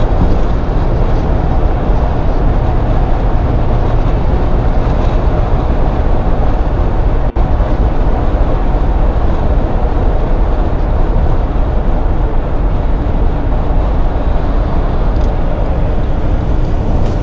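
Steady, loud road and wind noise inside a 2007 Ford Crown Victoria Police Interceptor cruising at highway speed, heavy in the low end. There is a momentary dropout about seven seconds in.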